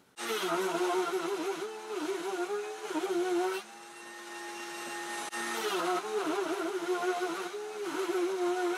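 Table-mounted router running with a 16 mm straight bit, milling a full-length groove into a plywood drawer side. Its high whine wavers in pitch as the wood is fed against the bit, holds steady for about two seconds in the middle, then wavers again.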